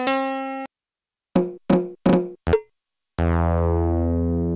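A held synthesizer note ends, then four short pitched drum hits from an MFB-501 Pro analog drum machine follow, about a third of a second apart. A long low note then holds for about a second and a half and stops near the end.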